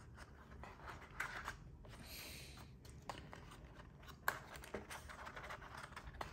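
Faint rustling and scraping of paper and cardboard packaging being pushed and handled, with a few small taps and one sharp click a little past four seconds in.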